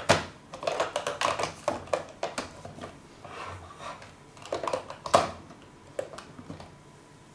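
Hard plastic clicks, taps and knocks from handling a Braun shaver cleaning and charging station, with a sharp knock at the start and another about five seconds in.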